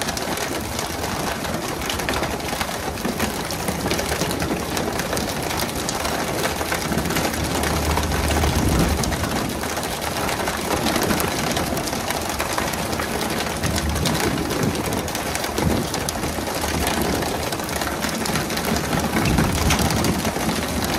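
Fishing boat's engine running under a steady rush of sea water, with splashing as fish are pulled from the water.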